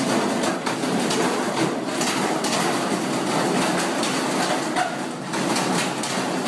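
Top-loading washing machine in an off-balance spin, banging and rattling rapidly and without a break as the drum's lopsided load shakes the whole cabinet.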